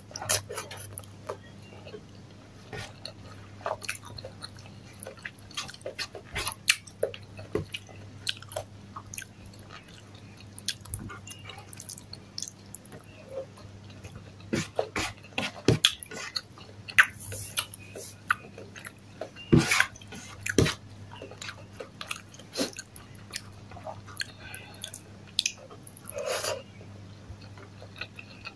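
Close-miked chewing of a mouthful of rice and sautéed bitter melon, with irregular wet mouth clicks and lip smacks. A faint steady low hum sits underneath.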